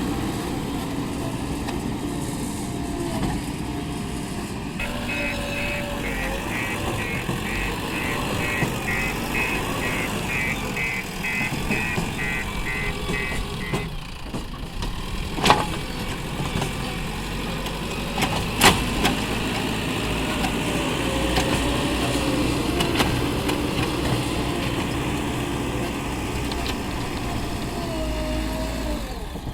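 Diesel engine of a JCB 3DX backhoe loader running steadily during mud loading. A beeping alarm sounds in a steady row of beeps for several seconds, and two sharp knocks come a few seconds apart about halfway through.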